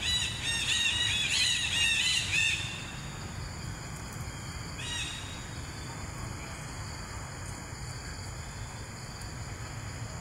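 Young macaque squealing: a quick run of short, high-pitched cries that rise and fall, for the first two and a half seconds, then one more cry about five seconds in.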